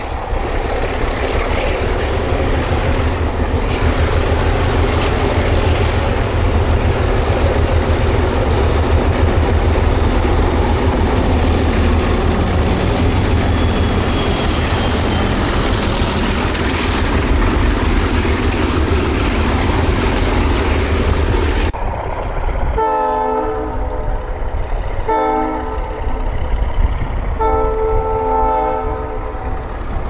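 ALCO diesel locomotives (an RS11 and an RS32) running, a steady heavy engine rumble mixed with rail noise. After about 22 seconds the horn sounds three blasts, the last the longest.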